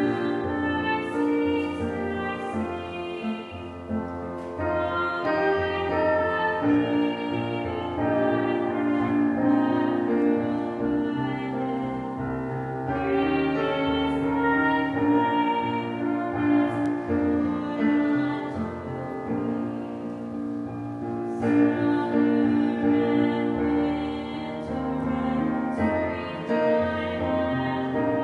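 Slow prelude music on a keyboard instrument, with long held notes and chords changing every few seconds.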